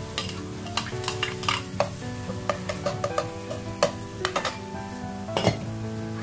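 A spoon or ladle stirring food in a cooking pot, clicking and scraping against the pot at irregular intervals.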